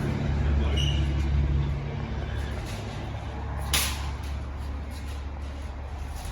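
A vehicle engine running with a steady low hum that eases a little after about two seconds, and one short sharp hiss about four seconds in.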